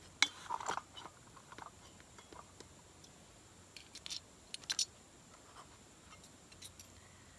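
Metal spatula scraping and clicking against a cast-iron skillet just after the start, then a few sharp clicks and light rustles about four and five seconds in as the spatula is set down on paper and things are handled.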